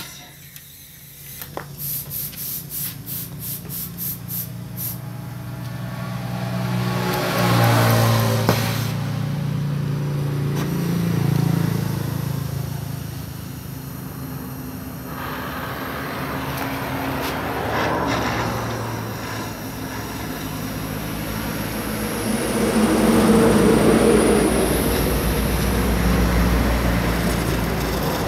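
Gas cutting torch hissing and roaring as it burns through a chrome steel motorcycle muffler, swelling and fading as the flame is worked along the cut. It opens with a sharp pop, followed by a quick run of about ten clicks over the next few seconds.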